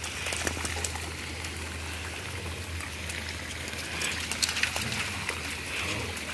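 Dogs' paws splashing through shallow, muddy creek water: a scatter of small splashes and slaps over a steady wash of water noise.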